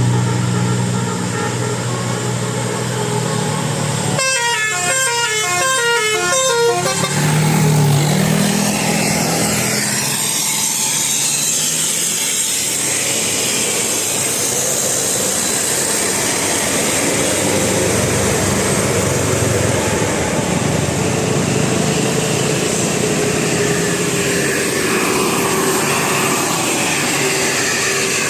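Bus 'telolet' multi-tone horn (Basuri type) sounding a run of quickly alternating notes a few seconds in, over steady bus and traffic noise.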